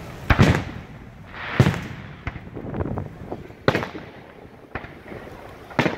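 Aerial firework shells bursting: four loud booms spread across the few seconds, with smaller cracks and pops between them.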